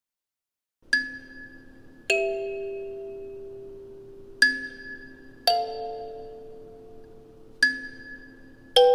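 Kalimba played slowly: six single plucked notes, each ringing on and fading before the next, beginning about a second in after silence.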